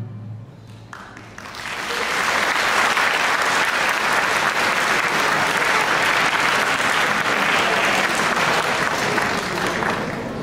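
Audience applauding as the orchestra's closing chord dies away. The clapping builds about a second and a half in, holds steady, and thins out near the end.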